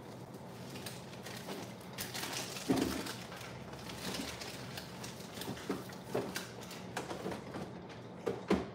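Rummaging through a refrigerator: containers and jars knocking and clinking, with a plastic bag rustling, in irregular handling noises. The sharpest knocks come about three seconds in and again near the end.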